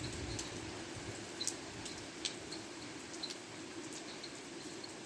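Wood bonfire just starting to catch: faint scattered crackles and clicks over a steady low hiss.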